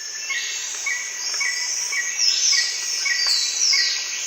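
Forest ambience: a steady high insect drone with a bird chirping about twice a second, and a few descending whistled calls in the second half.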